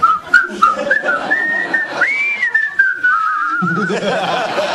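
Three men whistling a tune together in short gliding notes that end in a warbling trill. Studio audience applause and laughter start near the end.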